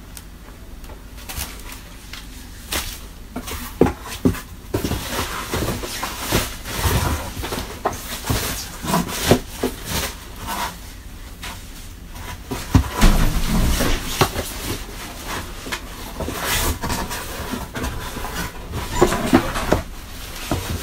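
Cardboard box and plastic packing rustling and knocking as a vacuum cleaner's parts are pulled out of the box, in irregular handling noises with one heavier thump a little past the middle.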